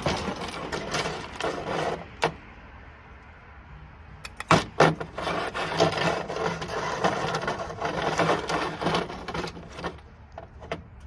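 Loose small metal parts from dismantled light sockets, brass screws and washers with bits of steel, rattling and scraping over a surface as a magnet is run through the pile to pick out the last steel pieces. There are two busy stretches, at the start and from about four and a half to nine seconds in, with sharp clicks among them.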